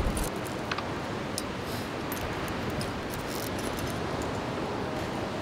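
Steady wash of ocean surf, with a few light metallic clinks and jingles of climbing carabiners and cams being handled.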